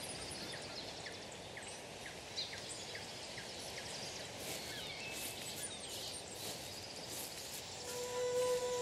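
Outdoor evening ambience: birds chirping and calling again and again over a steady background hiss. Near the end a steady low hum-like tone comes in.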